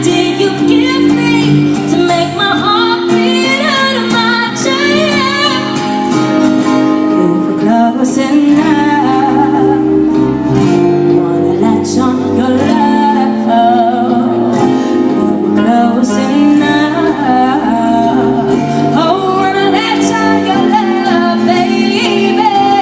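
A woman singing a pop song live with instrumental accompaniment, the melody running without a break.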